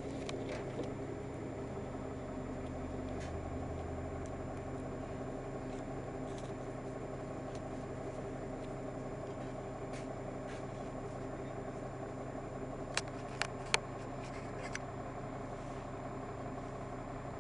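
Steady low mechanical hum of a running vehicle heard from inside, with three sharp clicks about two-thirds of the way through.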